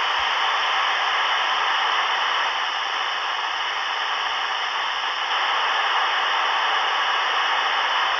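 FM ham radio receiver hissing steadily with the squelch open on the ISS repeater downlink: only static is left as the space station's signal fades out at the end of its pass.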